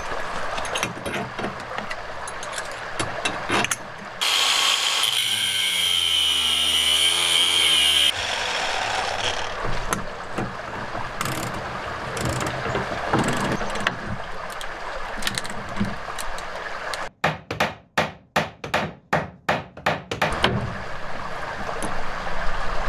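Socket wrench turning the nut on a homemade threaded-rod puller, metal working against metal as it draws a worn cutlass bearing out of a sailboat's stern tube. A steady whine lasts about four seconds a few seconds in. Near the end comes a run of sharp ratchet clicks, about three a second.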